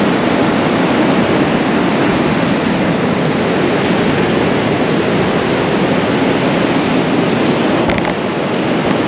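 Steady rushing wash of sea surf breaking along the shore, mixed with wind noise on the microphone.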